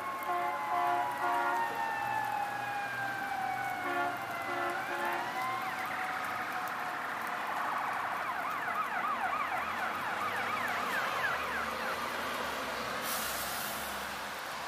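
Fire truck's Federal eQ2B electronic siren winding down, with several short horn blasts, then winding back up. It switches to a fast rising-and-falling priority tone for a few seconds, about two-thirds of the way in.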